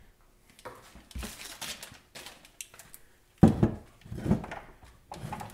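Handling noise of a DeWalt battery charger being plugged in and set up on a wooden workbench: scattered plastic clicks and clatter, with a louder knock about three and a half seconds in.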